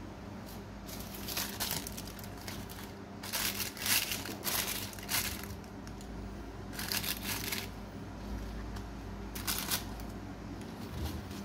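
A thin sheet of baking paper crinkling in several separate bursts as it is handled and spread out.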